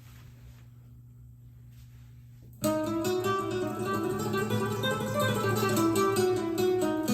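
Low steady hum, then acoustic guitar music starts suddenly about two and a half seconds in and plays on.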